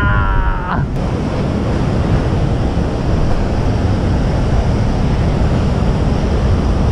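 Ocean surf breaking steadily on the rocks below, with wind rumbling on the microphone.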